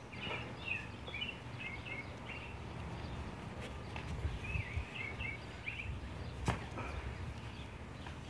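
A bird chirping in two runs of quick high notes, one early and one around the middle, with a few scattered sharp knocks, the sharpest about six and a half seconds in, over a low steady hum.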